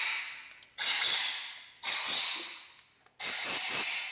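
Short blasts of compressed air from a hand-held blow gun, a new one about every second and a quarter, each starting abruptly and dying away, blowing coolant sludge out of the water jackets of a bare Subaru EJ253 engine block.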